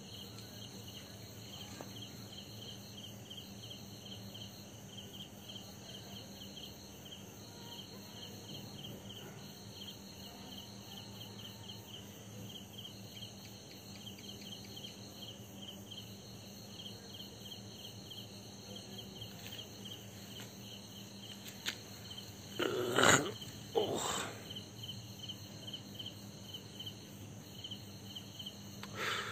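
Crickets chirping steadily at night, a few chirps a second, over a low steady hum. Two short, louder sounds break in about three quarters of the way through.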